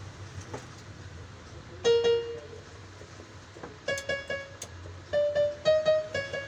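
Yamaha PSR-E443 portable keyboard sounding single notes as one key is pressed over and over: one note about two seconds in, then quick repeated notes of nearly the same pitch from about four seconds on. The key is being tested for sticking after a repair.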